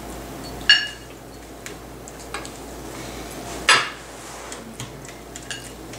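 Metal forks clinking against plates: two sharp, ringing clinks, about a second in and again near four seconds, with lighter taps between.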